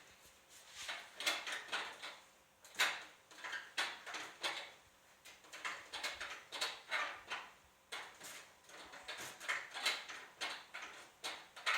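Irregular clicks, knocks and light clattering of things being handled in a kitchen, like doors, drawers and containers.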